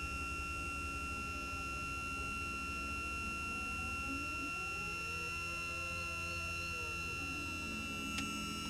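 Electric hydraulic pump of a motorhome's stabiliser-leg system running steadily, a constant whine over a low hum, as the legs extend and take the vehicle's weight. A small click comes near the end.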